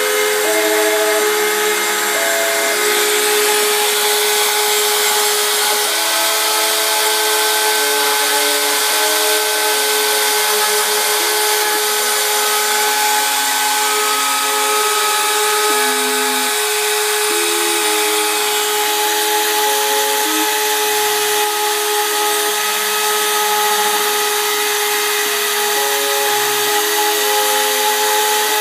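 Homemade CNC router milling a wooden board: its RotoZip rotary-tool spindle runs with a steady whine over the noise of the bit cutting the wood, while the stepper motors add short tones that keep jumping in pitch as the axes move.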